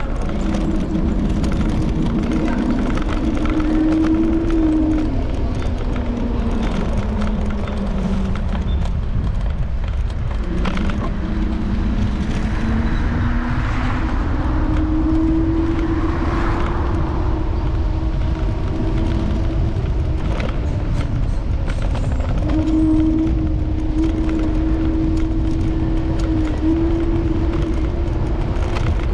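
Apollo Explore electric scooter's motor whining as it rides, its pitch falling in the first few seconds, rising again after about ten seconds and holding steady near the end. Under it, heavy wind and road rumble on the handlebar-mounted camera, with a few short knocks from bumps.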